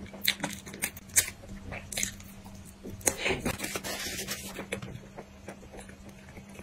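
Close-miked eating sounds: wet chewing with sharp mouth clicks and smacks, then a paper napkin rustling and crinkling for about a second and a half, starting about three seconds in.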